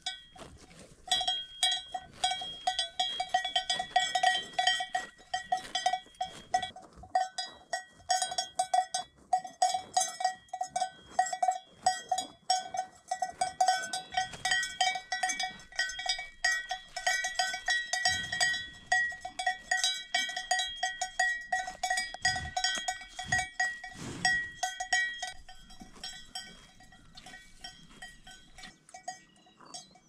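Cowbells clanking in quick, irregular strokes, each strike ringing with the same few bell tones, growing fainter and sparser near the end.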